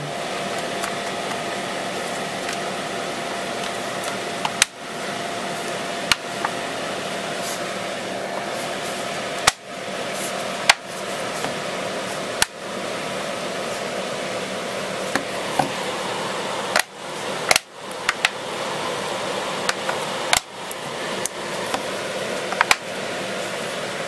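Plastic rear housing of an Amazon Kindle Fire HD 10 snapping onto the tablet's frame as it is pressed on around the edges: about a dozen sharp clicks at irregular intervals, heard over a steady background hum.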